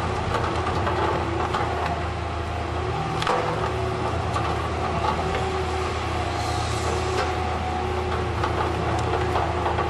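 Knuckleboom log loader's diesel engine running steadily while a CSI DL 4400 slasher saw cuts through a bundle of logs held in the grapple, with repeated cracking and knocking of wood and one sharper knock about three seconds in.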